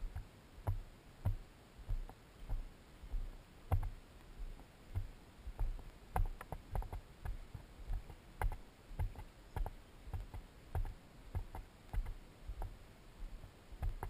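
A hiker's footsteps on a dry dirt trail, steady at about two steps a second, each a soft thump with a light click.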